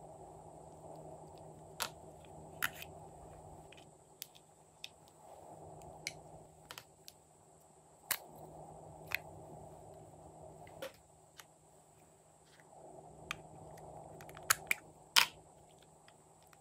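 Sharp plastic clicks and taps from small cosmetic cases being opened, closed and handled, scattered irregularly, with a few louder snaps close together near the end.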